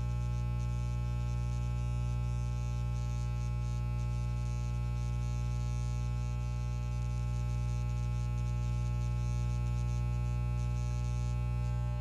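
Wahl electric hair clipper running free, not cutting hair, with a steady buzz and a light rattle.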